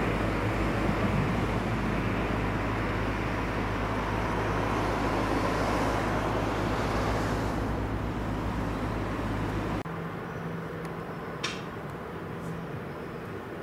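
Steady engine noise with a low hum under a broad rush, which cuts off abruptly about ten seconds in, leaving a quieter background with one sharp click.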